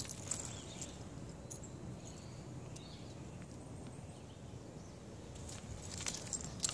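Shiba inu scuffling on asphalt as it pulls at its leash: scattered sharp clicks and scrapes from its claws and the dragged leash and clip. They come at the very start and again in the last second, with a quiet stretch between.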